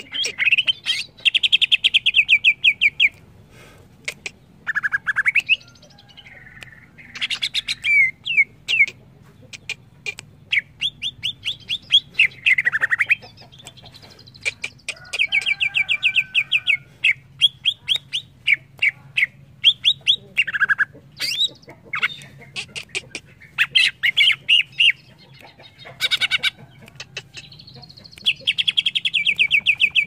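Cucak ijo (greater green leafbird) singing a varied song: fast trills of rapidly repeated notes, broken by short gaps, with single calls and quick sweeping whistles between them.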